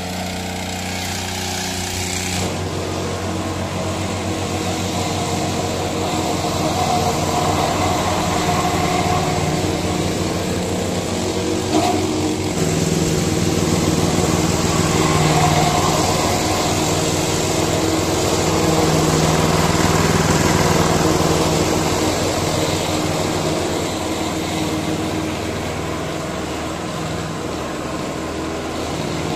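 Small petrol engines running steadily: a push lawn mower with a 190 cc Honda engine and a backpack brush cutter at work. The sound changes abruptly about two and a half seconds in and swells a little in the middle.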